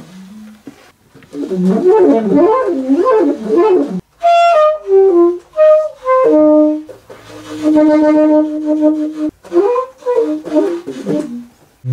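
Saxophone improvising: fast warbling, wavering phrases, then a falling series of short notes and one long held low note, then more warbling phrases near the end.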